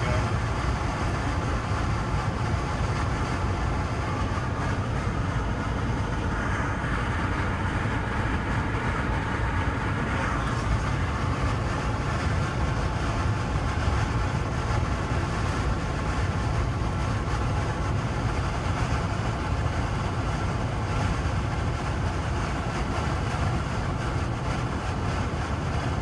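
Steady road noise inside a car's cabin at highway speed: a constant low tyre and engine rumble that holds level throughout.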